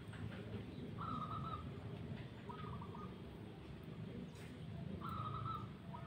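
Zebra dove (perkutut) cooing in short phrases, each a held note followed by a quick stutter of notes, heard twice.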